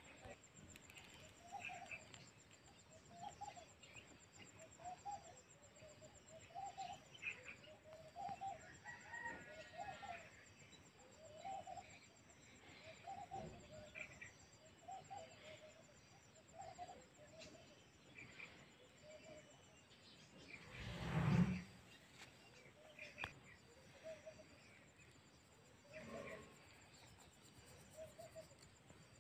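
A hen clucking steadily, about one short low cluck a second. About three-quarters of the way through comes a louder rush of noise lasting about a second.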